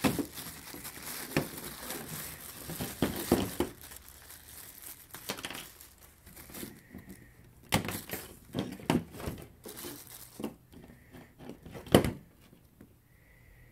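Clear plastic bag crinkling as a wiring harness and small parts are pulled out of it, followed by scattered light knocks of parts set down on a table, with one sharp knock near the end.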